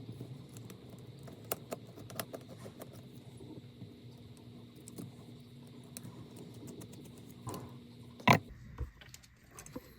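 Small scattered clicks and ticks of a precision screwdriver and tiny screws being worked on a Nintendo Joy-Con's plastic parts, with one sharper click a little after eight seconds in. A faint steady hum lies underneath.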